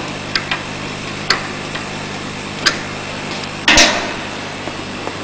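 Tool and fitting work on a laser machine's exhaust fan ducting: a few sharp clicks and knocks, with one louder clatter lasting about a quarter second near the middle, over a steady low hum.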